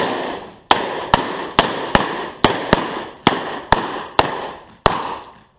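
Revolvers firing in quick succession, about eleven shots roughly half a second apart, each with a ringing echo that dies away before the next.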